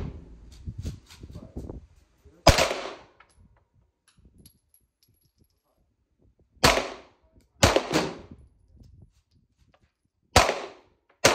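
Glock 9mm pistol firing single shots at an indoor range: five sharp reports, one to four seconds apart, two of them about a second apart near the middle. Each shot rings and echoes briefly off the range walls.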